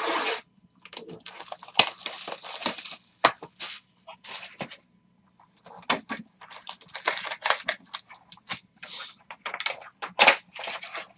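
Trading-card packaging being torn open and handled: plastic wrap and foil packs tearing and crinkling in many short, irregular bursts.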